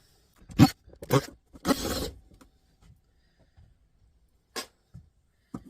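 Handling noises while a drill bit is swapped: a few sharp clicks and knocks, with a short rattle about two seconds in.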